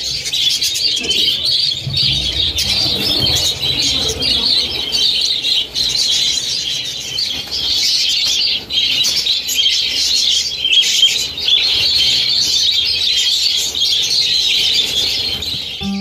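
A large flock of budgerigars chattering and warbling nonstop, many short calls overlapping, with wings flapping as birds fly about the room.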